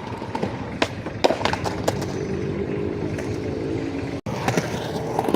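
Skateboard rolling on concrete with a steady wheel rumble, broken by several sharp clacks of the board, most of them in the first two seconds.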